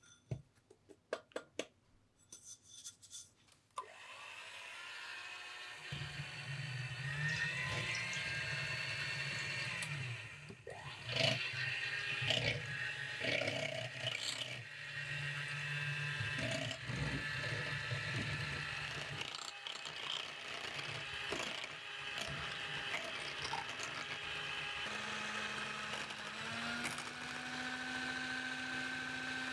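Toshiba electric hand mixer whipping fresh cream in a glass bowl: a few light clicks, then the motor starts and runs steadily with a whirring hum while the beaters whisk through the cream. The motor's pitch steps up a little near the end.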